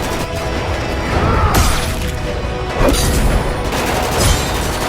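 Loud music mixed with crashing, explosion-like sound effects.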